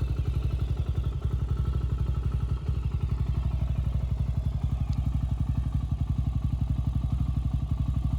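Honda TRX400EX's single-cylinder four-stroke engine, freshly rebuilt and in its break-in period, idling steadily with an even, fast pulse of about ten firings a second.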